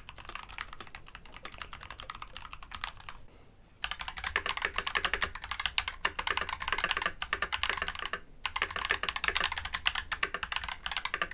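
Rapid typing on a mechanical keyboard: a fast run of keystroke clicks. The typing stops briefly a little over three seconds in, then resumes louder, with a couple of short breaks.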